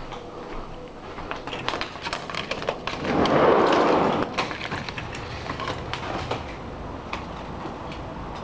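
Vertical blind slats clacking as they are pushed aside, then a sliding glass patio door rumbling open on its track for about a second, followed by a steady outdoor hum.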